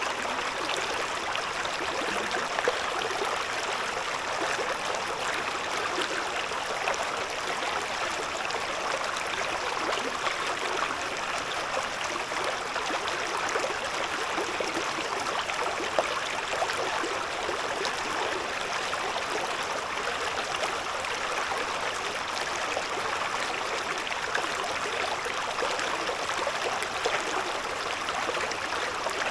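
A shallow river babbling steadily over stones, an even rush of water with small splashes and gurgles scattered through it.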